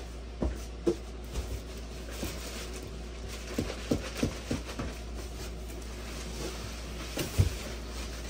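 Plastic packaging bag rustling and crinkling as it is handled and pulled around a boxed 3D printer, with scattered light knocks against the cardboard box. A louder bump comes near the end, as the wrapped printer is lifted out.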